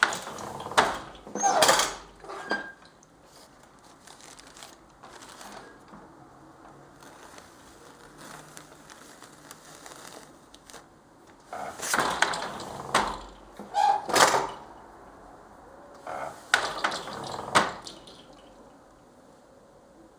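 Handloom being worked with paper in the weave: three bursts of knocks and papery rustling, at the start, about twelve seconds in and about seventeen seconds in, with quiet stretches between.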